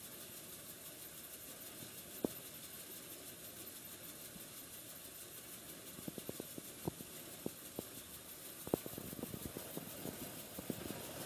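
An engine running steadily, with a run of sharp clicks and knocks from about six seconds in.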